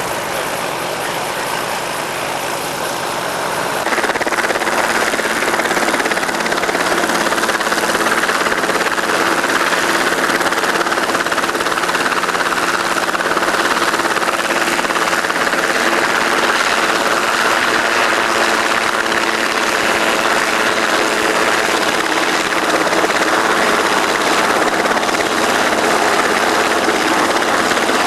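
Aircraft engine running steadily, getting louder about four seconds in and then holding that level.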